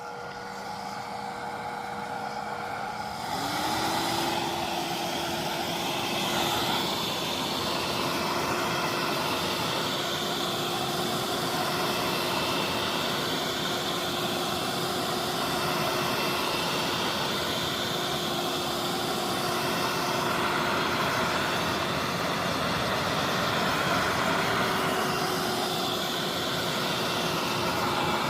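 Hair dryer blowing hot air onto a phone's back case to heat it before prying it open. Its motor whine rises in pitch about three seconds in, then runs steadily over a rush of air.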